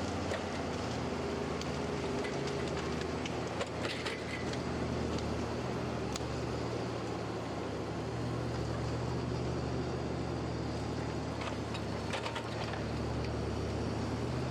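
Forestry forwarder's engine running steadily with a constant low hum as its hydraulic crane works, with a few faint clicks and knocks. It cuts off abruptly at the very end.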